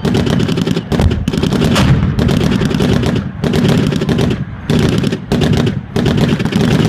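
Automatic machine-gun fire in long rapid bursts, broken by short pauses about every second or two.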